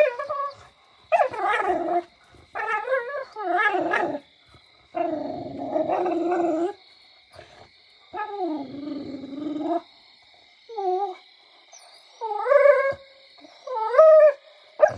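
American bully dog whining and howling in repeated drawn-out calls, about eight in all, several held for a second and a half or more and bending in pitch.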